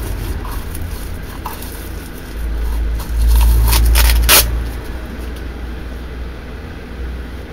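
Parts and packaging of a blade vise being handled: rustling and light clicks, with one sharp click about four seconds in. A low rumble underneath swells loudly in the middle for about two seconds.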